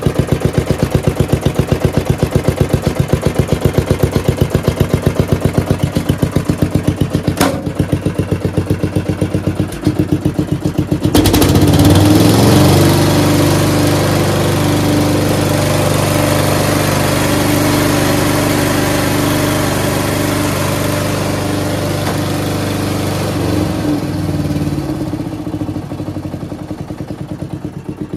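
Briggs & Stratton PowerBuilt 12.5 hp single-cylinder flathead engine on a Murray lawn tractor, idling with an even firing beat. About eleven seconds in it runs up suddenly to a faster, louder steady speed, and near the end it drops back to idle. A single sharp click is heard just before the run-up.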